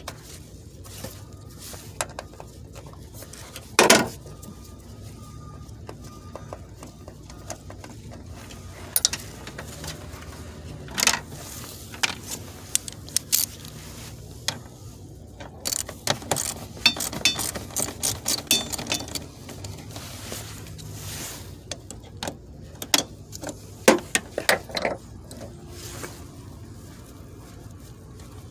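Intermittent metal clinks, scrapes and knocks of hand tools and a socket extension on a car's wiper motor assembly as its 10 mm bolts are taken out, with a sharp clunk about four seconds in.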